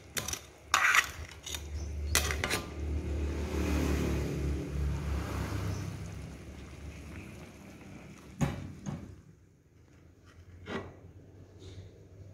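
Metal spatula scraping and knocking against an aluminium wok as a crab dish is stirred and scooped, with a few sharp clinks. A motor vehicle passes, its engine hum swelling to loudest about four seconds in and fading.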